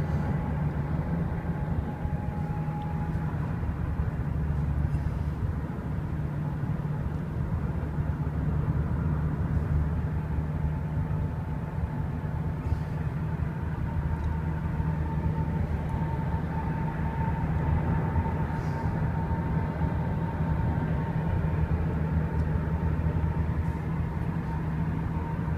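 A vehicle engine running steadily: a low, even rumble with a faint steady whine above it.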